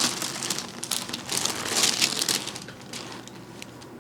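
Paper cover on a chiropractic treatment table crinkling and rustling as the patient's head and neck are moved, in uneven bursts that die down toward the end.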